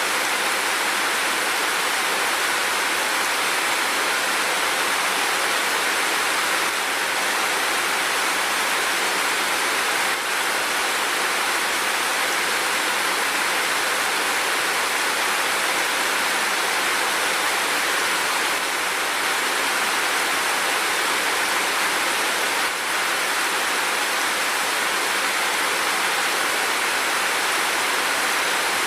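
Steady rain falling, an even unbroken hiss with no separate drops standing out.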